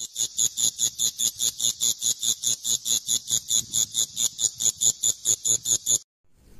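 Insect chirping: a fast, even series of high-pitched pulses, about five a second, that cuts off suddenly about six seconds in.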